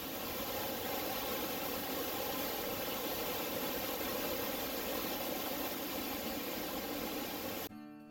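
Waterfall rushing steadily, a constant even noise that cuts off suddenly near the end.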